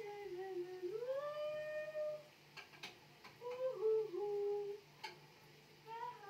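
A woman humming a wordless tune in short phrases, one of them a long rising, held note, with a few sharp clicks in between.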